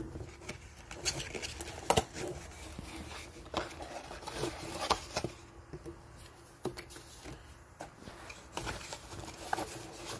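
Cardboard and paperboard boxes being handled: a small paperboard product box is lifted out of a shipping box and its flap opened. It sounds as scattered taps, scrapes and knocks, the sharpest about two seconds in.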